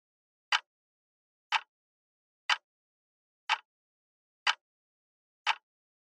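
Clock ticking sound effect marking off the seconds of a countdown timer: one sharp tick each second, six in all, with dead silence between.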